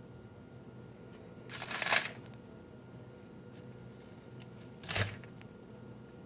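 Parchment paper and foil wrapping crinkling as hands shred pressure-cooked seitan: a half-second rustle about two seconds in, and a shorter one with a soft thump near five seconds.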